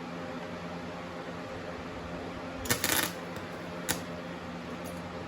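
Steady hum of a running flux-core welder's cooling fan, broken about two and a half seconds in by a short crackling burst of under half a second, then a single sharp click about a second later.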